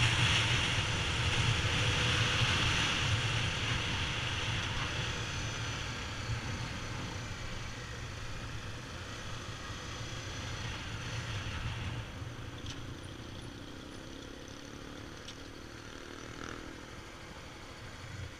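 Honda XR250 Tornado's single-cylinder engine running as the motorcycle slows down, with wind rushing on the microphone that fades away as speed drops. From about twelve seconds in only the engine's low idle remains as the bike rolls to a stop.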